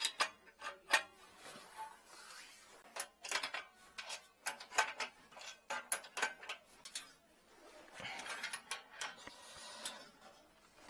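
An adjustable wrench clinking and scraping against the brass fittings on a heating manifold's sheet-metal bracket. The sound comes as bursts of sharp metallic clicks with short pauses between them.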